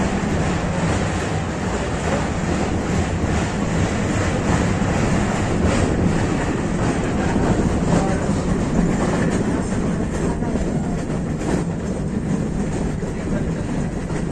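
Metre-gauge passenger train running steadily along the track, a continuous low rumble and rattle with irregular wheel clacks now and then.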